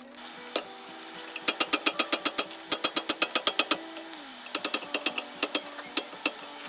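Blacksmith's hand hammer striking hot steel on the anvil horn in two quick runs of blows, about five strikes a second, with a short pause between the runs.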